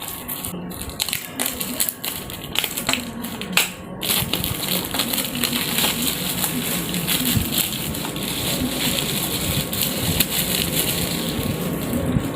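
Packaging crinkling and rustling as a parcel is unboxed, with a run of sharp crackles in the first few seconds and then a steady crinkle.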